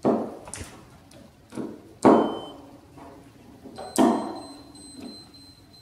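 Four sharp knocks of a hard object on a hard surface, each ringing away, the loudest about two seconds in and about four seconds in. A thin, high electronic tone is held for about two seconds after the last knock.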